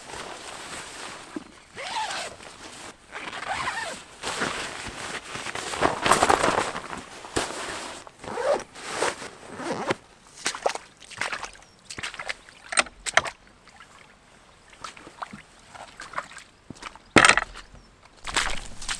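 A hiker's footsteps squelching through wet grass and mud, with his waterproof jacket and backpack rustling close by. Near the end come a few sharp knocks.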